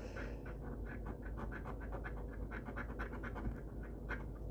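A coin scratching the coating off an instant lottery scratch-off ticket in quick repeated strokes, several a second.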